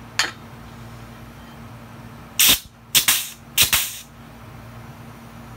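Grease gun pumping grease into the sand mixer's bushing through its fitting: one sharp click near the start, then, about two and a half seconds in, three short hissing strokes about half a second apart.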